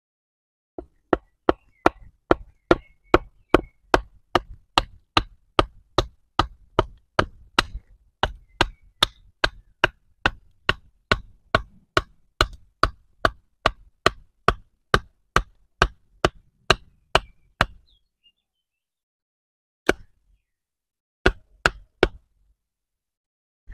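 A wooden baton knocks repeatedly on the spine of a BPS Bushmate bushcraft knife, driving the blade down through a stick (batoning), in sharp regular blows about three a second. Near the end the blows break off, then one more comes and a short run of a few.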